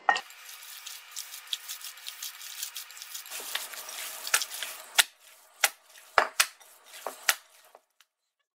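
Minced beef-and-pork mixture being worked by gloved hands in a glass bowl: wet, sticky squishing and crackling at first, then a series of sharp slaps and taps against the bowl about every half second. The sound stops shortly before the end.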